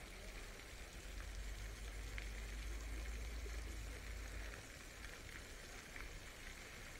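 Steady hiss of running water, with a low rumble through the first few seconds and a few faint ticks.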